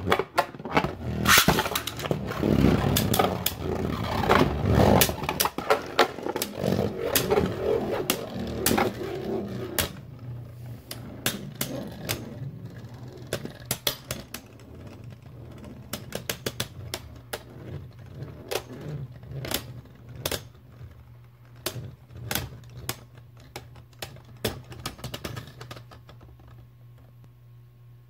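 Two Beyblade Burst Rise tops, Dusk Balkesh B5 and Right Artemis A5, spinning and clashing in a plastic stadium. A dense rattle of clicks and knocks fills the first ten seconds or so, then the collisions become sparser and quieter and stop about twenty-six seconds in.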